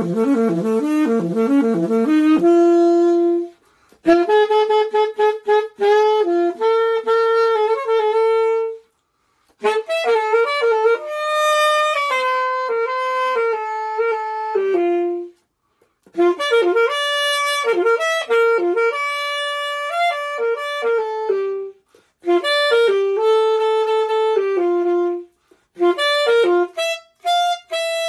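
Unaccompanied melody on a single wind instrument, played in phrases of a few seconds separated by short silences. It opens with a quick run of low notes.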